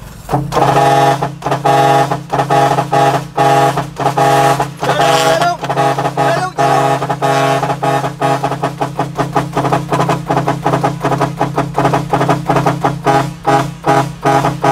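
A truck's electric air-powered musical horns, of the 'ong vàng' (yellow bee) type, play a quick tune of short repeated notes over a steady low drone. The notes come faster toward the end.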